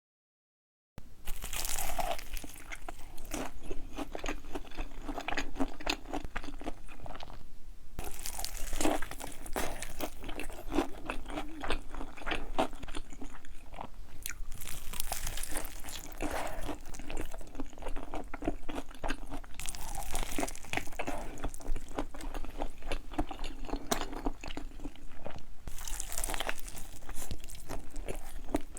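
Close-miked eating of crunchy food: a loud crunching bite about every five or six seconds, five in all, each followed by steady chewing.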